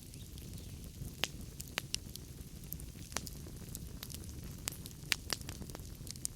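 Wood fire burning in a fireplace: a steady low rumble of flames with sharp, irregular crackles and pops of the burning logs.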